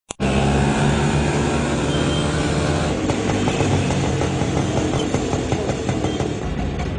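Road traffic noise: vehicle engines running steadily, starting abruptly after a click.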